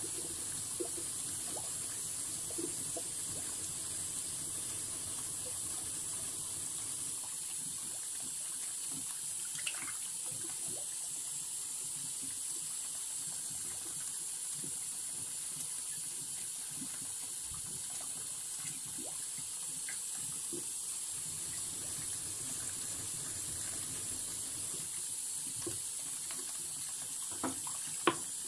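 Tap water running steadily into a sink as a constant hiss, under faint scraping of steel blades being rubbed flat on wet sharpening stones. Two sharp knocks come near the end.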